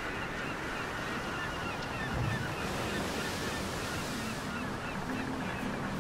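Waves washing and wind, with many short bird calls repeating over them.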